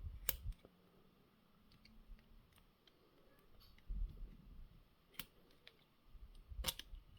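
Faint handling of a small car door lock cylinder and its plastic clip: a few sharp clicks of small parts, spread out, with low dull bumps as it is turned in the hands.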